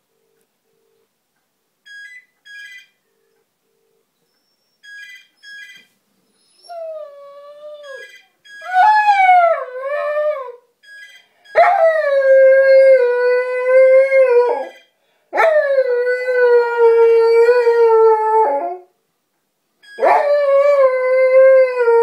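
A phone ringing in short paired beeps, then a border collie howling along with it: wavering calls about seven seconds in that build into three long howls, each starting high and settling into a held tone.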